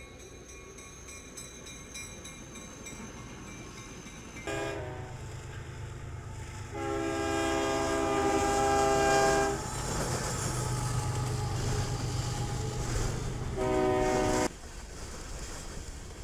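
Freight locomotive air horn blowing a chord of several notes over the engine's rumble: a short blast, then a long blast of about three seconds, then another short blast about four seconds later. Freight cars then roll past with a lower rumble.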